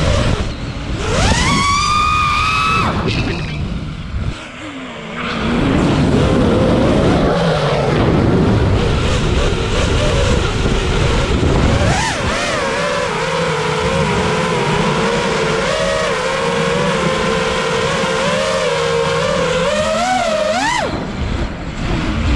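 A multirotor drone's motors whining with the throttle. The pitch climbs steeply about a second in, then after a stretch of air rush it settles into a wavering steady whine and surges upward near the end.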